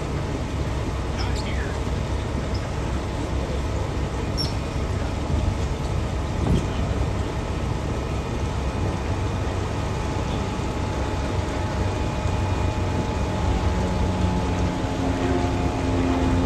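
Strong wind rumbling and buffeting on the microphone, over a steady engine hum.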